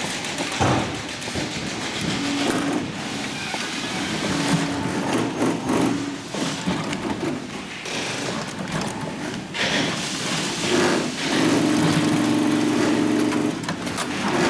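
Adler 205-370 heavy-duty cylinder-arm industrial sewing machine stitching in several short runs that start and stop, the longest about two seconds near the end, with a few sharp clicks in between.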